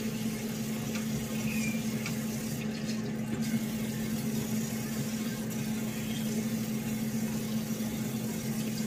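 Tap water running steadily into a sink, rinsing dish soap off a plastic stencil held under the stream.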